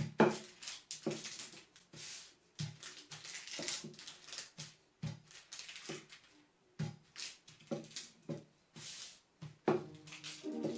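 Wooden rolling pin rolled back and forth over butter wrapped in folded parchment paper, making repeated rustling, crinkling strokes of paper pressed against the countertop. Music begins near the end.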